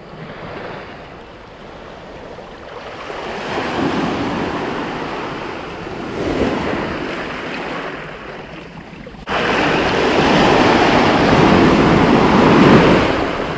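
Surf breaking and washing up the sand at the shoreline, swelling and ebbing, then abruptly much louder about nine seconds in.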